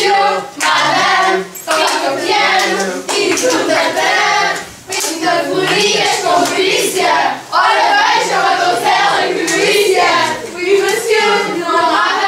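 A group of young voices singing together, with hand clapping.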